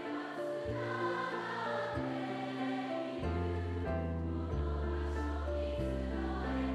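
Music with choir singing over held chords; a deep bass part comes in about three seconds in.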